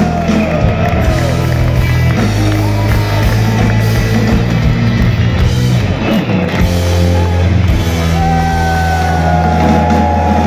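A Celtic punk band playing loud and live: electric bass, guitars and drums with sung vocals over them.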